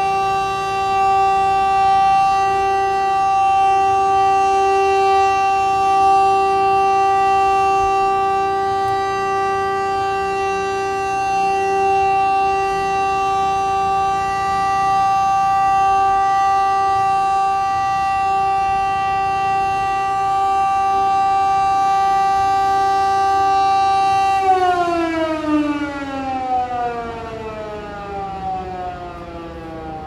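Federal Signal Model 2 outdoor warning siren sounding its steady full-alert tone. About 24 seconds in it shuts off and winds down, its pitch sliding steadily lower.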